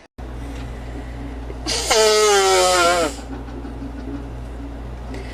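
A loud voiced sneeze about two seconds in, its drawn-out cry falling in pitch, over a steady low hum.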